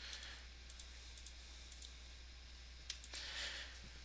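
Faint computer mouse clicks, a few scattered single clicks, over a steady low electrical hum.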